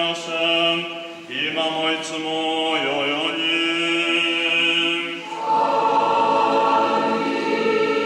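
Orthodox liturgical chant sung in Japanese: a priest's sung intonation and a small choir, with held notes. The singing grows fuller and brighter from about five seconds in, as the choir's response takes over.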